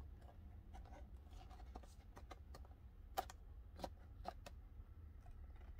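Faint clicks and crackles of a plastic blister pack being handled, with three sharper clicks a little past the middle, over a low steady hum.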